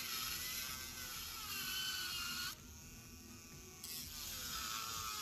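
Auriox cordless nail drill spinning a Yafex extra-coarse carbide barrel bit against an acrylic nail tip: a whining motor note that wavers in pitch as the bit grinds the acrylic. The sound drops away for about a second just past halfway, then picks up again.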